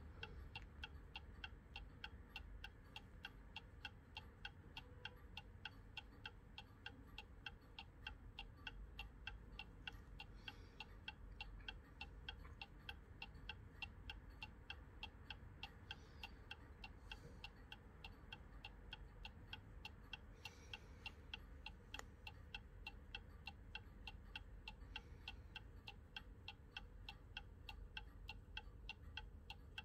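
Junghans 8-day mantel clock movement ticking at a steady, even beat as its pendulum swings, each tick a faint, sharp click from the escapement.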